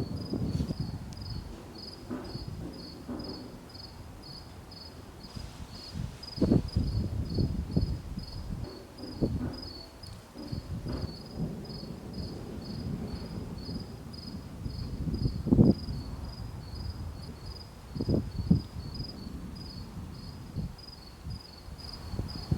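An insect, likely a cricket, chirping in a steady, even, high-pitched pulse, with scattered low thumps and rumbles underneath; the loudest thumps come about two thirds of the way through.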